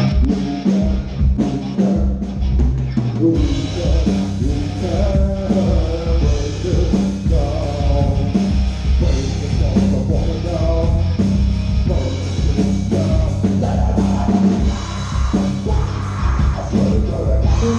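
Live rock band playing through a stage sound system during a sound check: drums, guitar and bass with singing, getting fuller a few seconds in.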